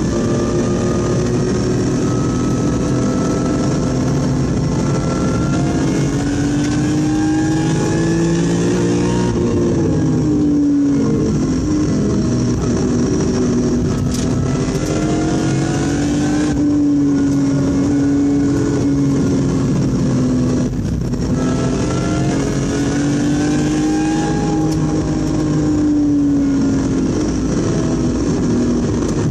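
BMW E46 M3's S54 straight-six engine heard from inside the cabin under hard track driving, its pitch climbing under acceleration and falling back about four times as the car lifts, brakes or shifts for corners.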